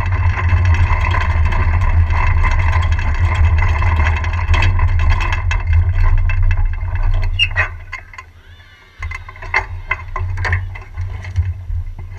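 Unpowered soapbox cart rolling on an asphalt lane, a steady rumble of its wheels with air rushing past the onboard mic. The rumble dies away as the cart rolls to a stop about eight seconds in, and scattered clicks and knocks follow.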